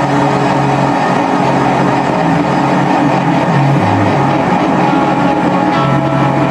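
Rock band playing live, with electric guitars, bass guitar, keyboard and drums in a loud, dense mix, the bass stepping between held notes.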